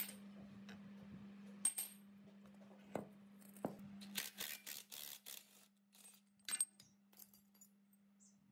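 Metal clinks and knocks as a three-jaw gear puller is fitted over a rusty pulley and worked to draw it off its shaft. About four seconds in there is a quick run of clicks while the puller's screw is turned, then a few lighter clinks as the loose pulley is handled.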